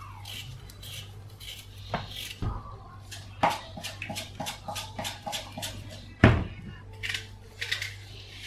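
Kitchen prep: a paring knife scraping and cutting potatoes and zucchini held in the hand, with scattered knocks and clinks of utensils and dishes on the counter. The sharpest knocks come about two, three and a half and six seconds in, over a steady low hum.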